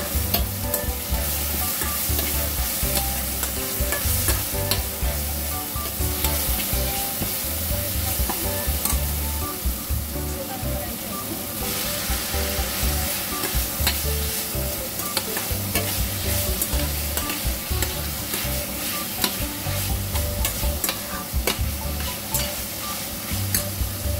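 Chili spice paste sizzling in oil in a stainless steel pan, stirred with a metal slotted spatula that scrapes and clicks against the pan. A little before halfway the sizzle drops as soaked krecek (cow-skin crackers) goes into the pan, and the scraping and clicking of the stirring carries on.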